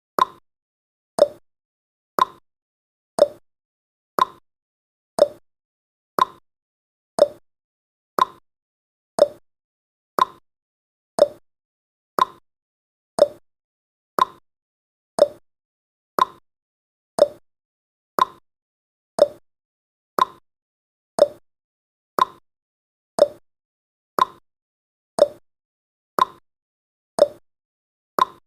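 Countdown timer's tick sound effect: one short, pitched knock every second, steady and even.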